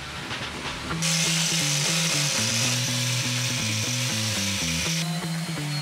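A power tool running with an even, hissing whir over background music; it starts about a second in and cuts off abruptly about a second before the end.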